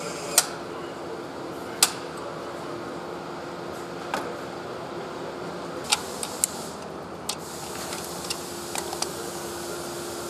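Assembly-hall ambience: a steady machine hum with a faint constant tone, broken by about a dozen sharp clicks and taps scattered through, from hands working on parts and connectors.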